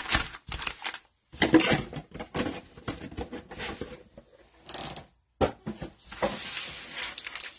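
Foil-wrapped trading-card packs being shuffled and set down on a table by gloved hands: a string of short crinkles, taps and clicks, with a longer crinkly rustle near the end. The sound cuts out to silence twice, briefly.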